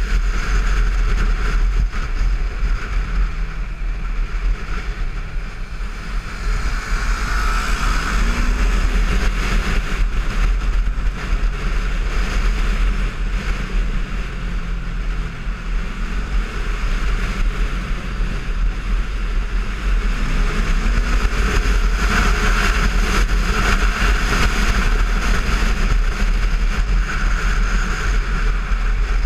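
Heavy wind noise buffeting the microphone of a camera on a Kawasaki Versys 650 ridden at speed, with the bike's parallel-twin engine faintly heard underneath, its pitch rising and falling a few times.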